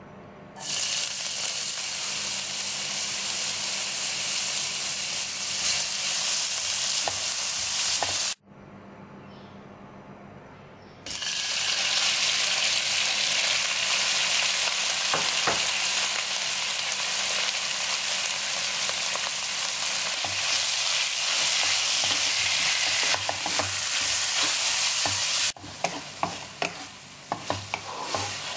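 Hot oil sizzling loudly in a wok as sliced beef fries. The sizzle breaks off abruptly about eight seconds in and comes back about three seconds later. Near the end it dies down, and a wooden spatula clacks and scrapes against the wok as the beef is stirred.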